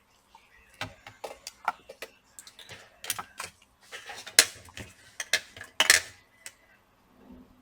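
Irregular clicks, knocks and light metallic clinks of a laptop motherboard and tools being handled and set in place on a workbench, with two louder knocks in the second half.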